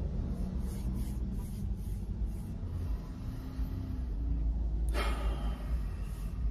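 Low steady rumble inside a car cabin, with a short sharp breath about five seconds in.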